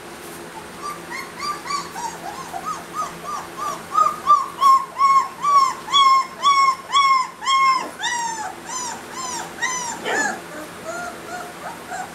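Three-week-old Newfoundland puppy whimpering: a long run of short, high, rise-and-fall whines, two or three a second, loudest in the middle and easing off near the end.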